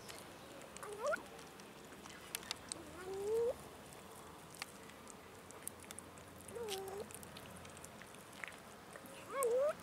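Cat making short rising mews and murmurs while eating wet food, four calls a few seconds apart, with small clicks between them.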